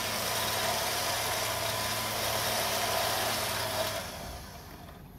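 Electric winch on a Land Rover's front bumper spooling in its steel cable to take up tension: a steady motor whine that stops about four seconds in.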